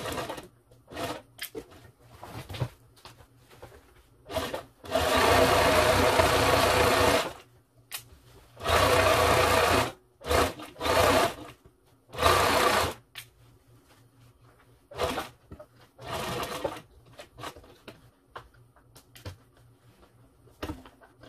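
Sewing machine stitching in stop-start runs, the longest about two seconds, with short blips between. It is sewing the seam of a leatherette box cushion, going back and forth over the zipper end to reinforce it.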